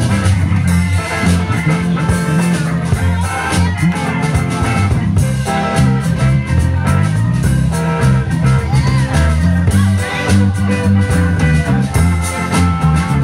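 Live band playing a blues-rock tune: electric guitars, bass guitar, drum kit and keyboard, steady and loud throughout.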